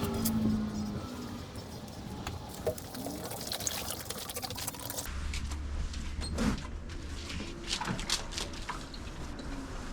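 Liquid pouring and splashing over a whole raw lamb as it is washed down with distilled vinegar, with irregular wet splashes throughout, busiest in the middle.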